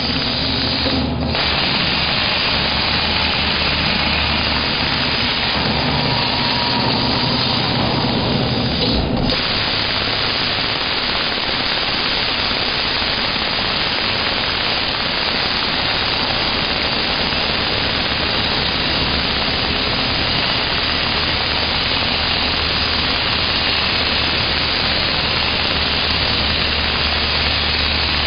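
CNC plasma cutter running: a steady, loud hiss with a low hum underneath. Two short sharp sounds come about a second in and again around nine seconds, after which most of the hum drops away.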